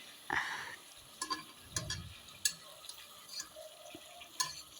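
A cooking utensil clicking and scraping against a pan as pieces of chicken are turned over, a few separate light knocks over faint frying.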